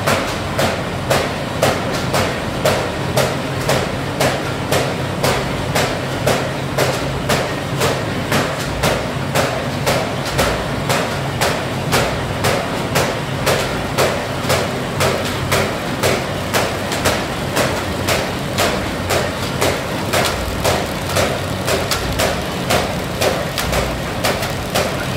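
Automatic paper bag making machine running: a steady hum with a sharp, even knock a little under twice a second as it cycles.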